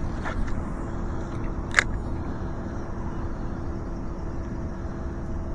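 A boat motor running with a steady hum. Two short sharp clicks come in, at about a quarter second and again near two seconds in.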